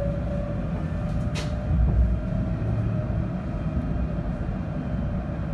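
A tram running between stops, heard from inside the passenger car: a steady low rumble with a faint tone rising slightly in pitch that fades out about halfway through. There is a sharp click about one and a half seconds in, then a low thud.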